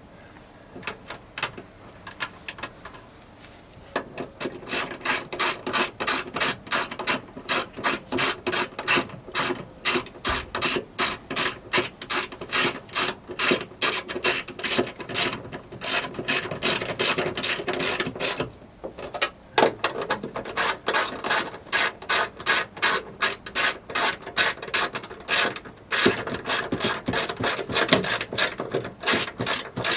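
Hand ratchet with a 10 mm deep socket running the trunk latch's mounting nuts back on. It clicks steadily, about three clicks a second, starting about four seconds in, with a couple of short pauses between runs of strokes.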